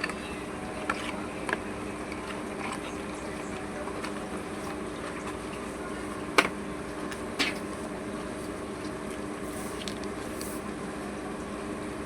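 A few sharp clicks and taps from handling a smartphone and its packaging over a steady low hum; the loudest click comes about six and a half seconds in.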